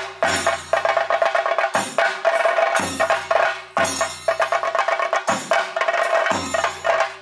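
Chenda drums played with sticks in a fast, dense rolling rhythm, with a deep bass stroke roughly once a second.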